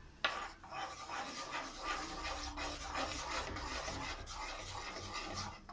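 Plastic spatula scraping and stirring a thick coconut and condensed-milk mixture in a nonstick pan, a dense rasping scrape made of many quick strokes. It starts with a sharp scrape just after the start and cuts off suddenly near the end.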